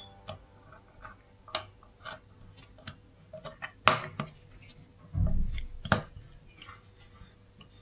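Light metallic clicks and taps of a watchmaker's screwdriver and tweezers working on a brass watch movement in its holder, scattered and irregular, with a dull knock about five seconds in.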